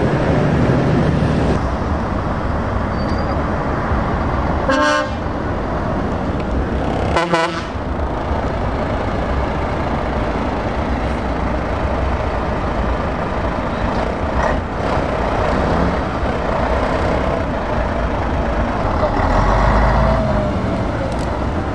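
Heavy diesel truck engines running, with two short horn toots about two and a half seconds apart. Near the end the engine noise swells as a truck pulls away.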